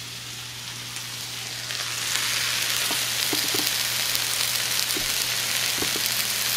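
Hot cast-iron fajita skillet of chicken, peppers and onions sizzling hard. The sizzle grows louder about two seconds in as the pan is set on its wooden board, with a few light knocks.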